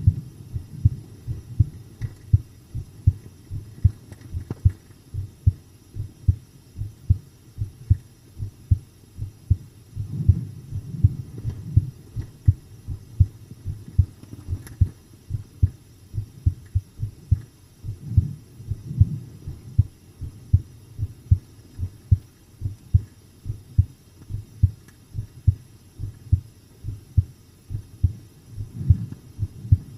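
A person's own heartbeat picked up close at the chest while she rests: soft, low paired thumps (lub-dub) in a steady, even rhythm.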